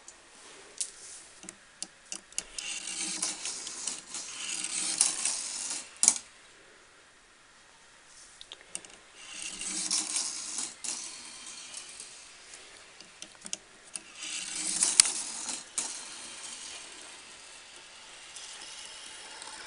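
Marbles rolling and rattling along a plastic marble-run track in three spells of a few seconds each, with sharp clicks as they strike the track; the loudest click comes about six seconds in.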